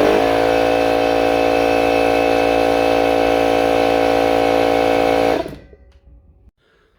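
DeWalt DCC1054 54V FlexVolt cordless pancake compressor's oil-free brushless motor and pump running steadily with a loud hum, then winding down and stopping about five seconds in. The motor had been partially seized and was freed by spinning it by hand.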